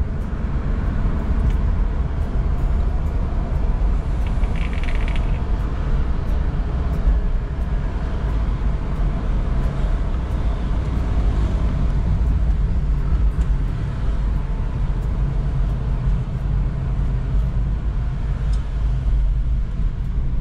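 Steady low road and engine rumble heard inside the cabin of a moving Toyota car. A brief, higher-pitched sound comes about four to five seconds in.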